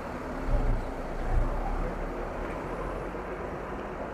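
Large diesel coach engine running as the bus pulls away and drives off, with two brief low surges about half a second and a second and a half in.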